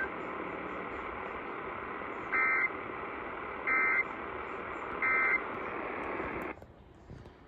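NOAA Weather Radio broadcast over steady static: three short bursts of EAS (SAME) end-of-message data tones, about a second and a half apart, mark the end of the severe thunderstorm warning. The static then cuts off suddenly near the end.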